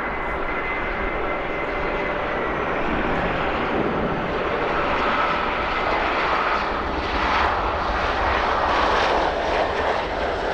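Jet airliner's engines running steadily as it passes, with a faint high whine. The sound grows somewhat louder through the middle and eases slightly near the end.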